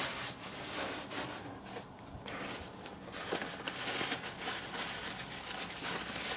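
Paper wrapping rustling and crinkling as hands pull it off a potted succulent. The crackle is quieter around two seconds in and busiest in the second half.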